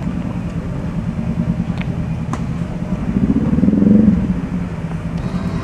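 Motor vehicle engine passing: a steady low engine rumble that grows louder to a peak about four seconds in, then fades.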